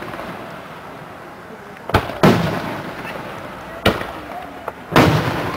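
Aerial firework shells bursting: a pair of bangs about two seconds in, a sharp crack near four seconds, then another loud boom about five seconds in, the big ones trailing off in a rolling echo.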